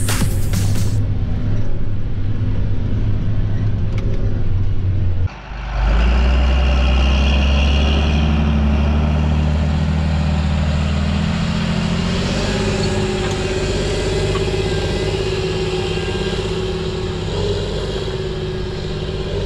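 John Deere farm tractor's diesel engine running steadily in the field. The sound drops out suddenly and briefly about five seconds in, then comes back.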